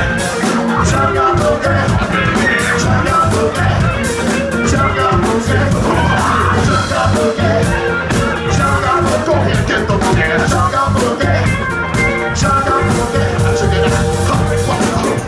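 Live band playing loud, continuous music: a drum kit keeping a steady beat under electric guitars, with a lead vocal.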